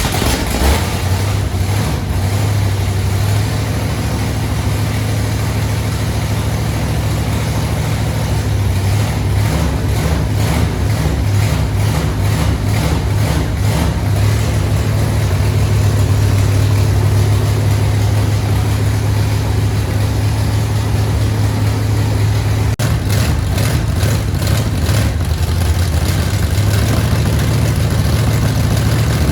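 1977 Chevrolet C20's 454 big-block V8 running steadily just after starting, with a deep, even hum throughout.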